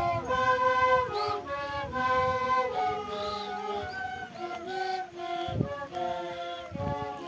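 Wooden Andean flutes played together by a walking procession: a stepwise melody of held, reedy notes. Two low thumps come in the second half.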